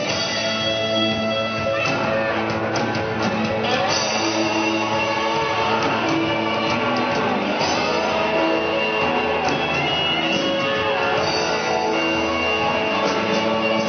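Amateur rock band playing live: electric guitars over drums, with no singing in this stretch.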